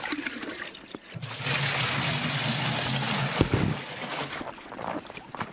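Water poured from a metal bucket into a plastic water canister: a steady gush lasting about two and a half seconds, starting about a second in, then fading.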